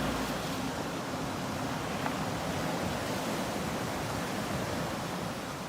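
Ocean waves washing on the shore, a steady rush of surf without any single distinct break.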